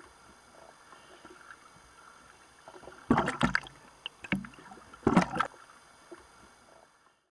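Seawater splashing and sloshing at the surface in loud noisy bursts, first about three seconds in and again about five seconds in, over a faint hiss. The sound drops away near the end as the camera goes under.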